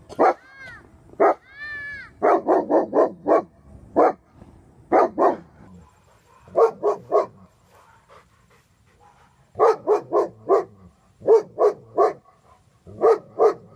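Young German Shepherd barking reactively in rapid bursts of three or four, with a couple of high rising-and-falling whines in the first two seconds.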